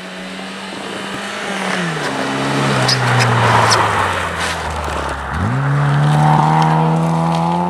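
Mk1 Volkswagen Golf rally car's four-cylinder engine passing close through a snowy corner. The revs fall away as the driver lifts through the bend, then climb sharply about five seconds in as the throttle goes back on, and the engine holds there. A hiss of tyres and thrown snow comes as the car is nearest.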